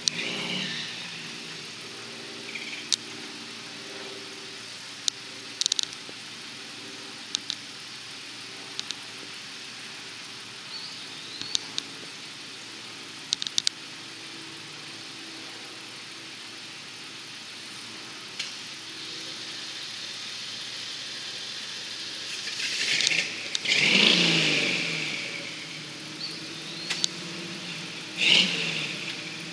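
Off-road 4x4 engine running steadily, with scattered sharp clicks. A little over twenty seconds in it revs up loudly, with the pitch rising and falling, and it gives another short rev near the end.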